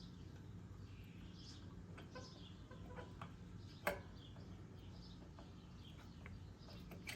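Faint clicks and light taps of small metal carburetor parts being handled during reassembly, with one sharper click about four seconds in, over a steady low hum.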